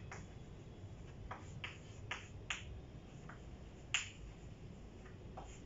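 Chalk tapping on a chalkboard while formulas are written: a series of short, sharp clicks at irregular intervals, about eight of them, the loudest about four seconds in.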